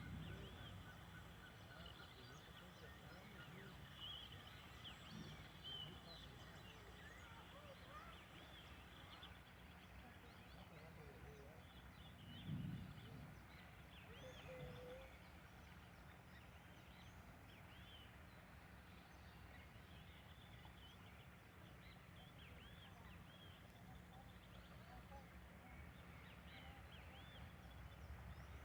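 Faint birds chirping and calling, many short calls scattered throughout, over a steady low background hum. A brief low thump about twelve seconds in.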